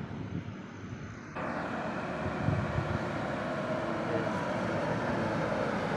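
Road traffic: a heavy road vehicle's engine and tyre noise, rising with a sudden jump about a second and a half in, then growing slowly louder as the vehicle approaches.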